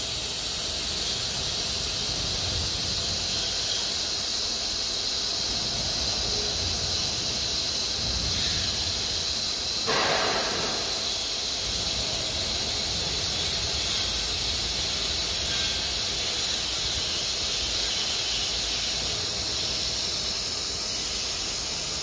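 Steady hiss that does not change, with one short scrape-like noise about ten seconds in.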